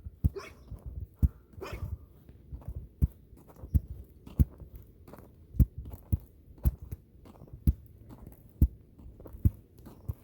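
Footsteps on a thick crust of ice over snow that doesn't give underfoot, a sharp step at a steady walking pace of roughly one every two-thirds of a second.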